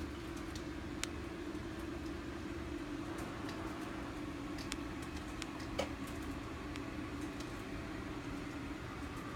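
Steady low mechanical hum, like room background from a running appliance, with a few faint clicks, one about a second in and another near the middle.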